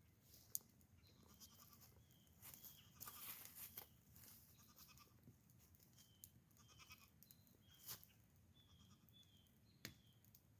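Goats bleating faintly, a string of short high calls, with a few soft clicks and rustles between them.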